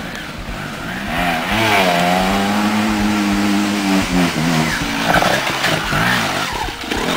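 Trials motorcycle's 250cc two-stroke single-cylinder engine revving. It climbs about a second in, holds high revs for about two seconds, drops off around four seconds, then is blipped up and down again in short revs.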